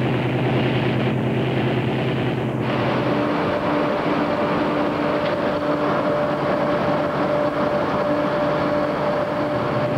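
Motor vehicle driving on a highway: steady engine and road noise. About three seconds in it changes to the noise inside a moving car's cabin, with a steady engine drone.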